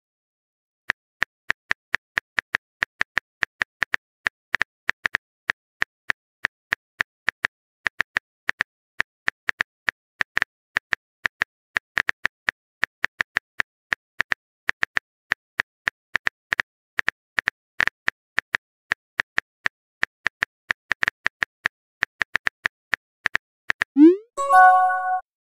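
Texting app's keyboard typing clicks, a quick irregular run of short taps as a message is typed out. Near the end, a short rising pop-and-chime sound effect as the message is sent.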